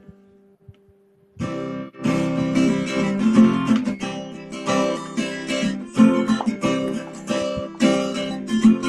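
Acoustic guitar: a chord fades almost to nothing, then about a second and a half in, strummed chords start up again and carry on in a steady rhythm.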